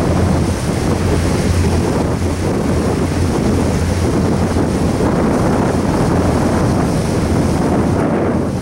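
Double-stack intermodal freight cars rolling past over a railroad bridge: a steady, loud rumble of steel wheels on rail.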